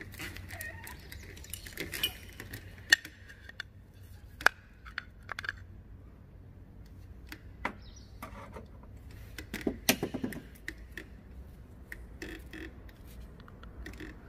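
Metal parts and hand tools clinking and knocking as they are handled, with scattered sharp taps and a busier cluster about ten seconds in.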